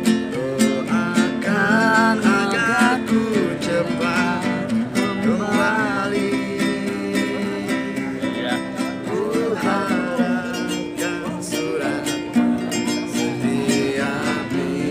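A nylon-string classical guitar strummed steadily, with a man singing a melodious song over it in phrases that come and go.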